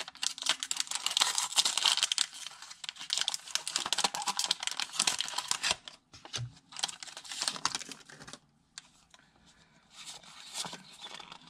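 Foil wrapper of a Pokémon TCG booster pack crinkling and tearing as it is opened by hand. About halfway through it thins to scattered rustles and taps as the cards are pulled out and handled.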